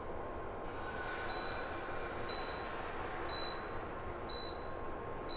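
Crepe batter sizzling as it is poured into a hot oiled frying pan, starting under a second in. A portable induction burner then beeps, a short high beep about once a second, because the pan has been lifted off it.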